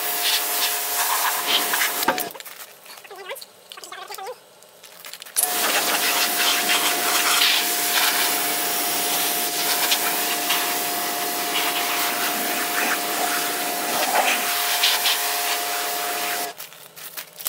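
An electric cleaning machine running steadily on the van's bodywork, a motor hum over a rushing, rubbing noise. It cuts out about two seconds in and starts again some three seconds later.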